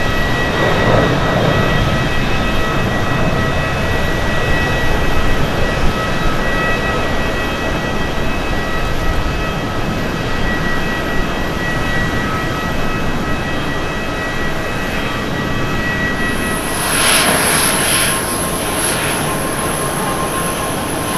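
Jet engines of a twin-engine airliner at takeoff power during the takeoff roll and climb-out: a steady rushing noise with several high whining tones over it. About seventeen seconds in, the sound changes to an Airbus A350-941's engines on its takeoff roll, with a high thin whine and more hiss.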